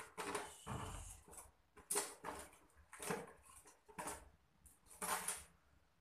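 Tools and metal parts clattering in a plastic toolbox as someone rummages through it, in about half a dozen irregular rattles.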